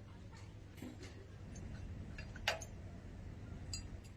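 A few light metallic clinks, the sharpest about two and a half seconds in, over a low steady hum.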